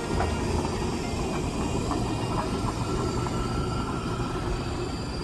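A train running by on the railway line, a steady noise without a break.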